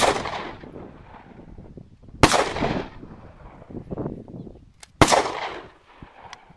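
Three shots from an AR-15 pistol, fired slowly about two and a half seconds apart, each a sharp crack followed by a ringing tail that dies away over about a second.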